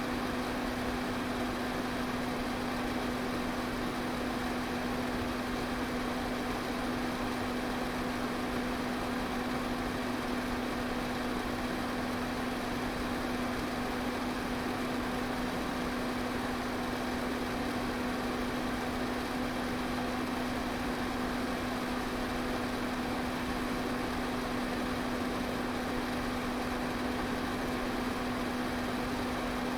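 Electric fan running steadily: an even rush of air with a steady low motor hum underneath.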